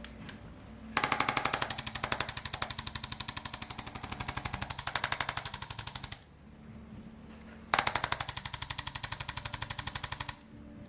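Arthrostim adjusting instrument firing a rapid rattle of percussive taps into the low back and mid-back, in two long runs with a short pause between them.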